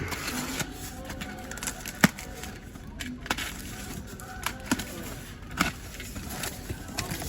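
Scattered sharp clicks and knocks of packaged die-cast model cars and their cardboard case being handled, over a steady store background.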